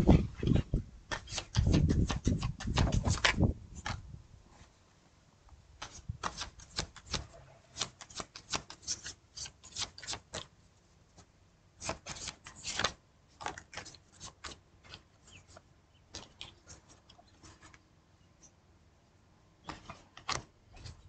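Tarot cards being shuffled by hand, a string of quick card clicks and flicks coming in clusters. A low rumble sits under the first three or four seconds.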